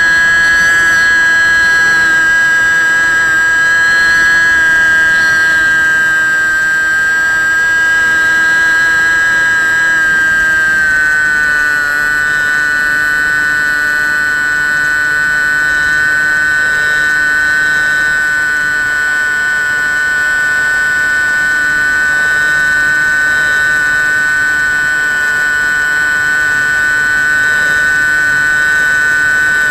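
Bixler 1.1's 2620 1900kv brushless outrunner motor and propeller running at cruise, heard from the onboard camera as a loud, steady high whine. Its pitch drops slightly about eleven seconds in and then holds.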